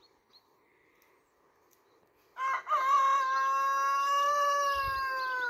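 A rooster crowing once, starting a little over two seconds in: a short opening note, then one long held call of about three seconds that falls slightly at the end.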